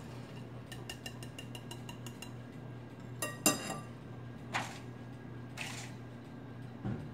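A spoon stirring cake batter in a glass mixing bowl, ticking quickly against the glass, then one loud ringing clink of utensil on glass about three and a half seconds in. Two brief scraping rustles follow and a dull knock comes near the end, over a low steady hum.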